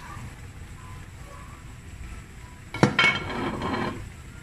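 A metal pot lid clanks against the rim of a metal cooking pot as it is lifted off, with a sharp clang about three seconds in and about a second of ringing clatter.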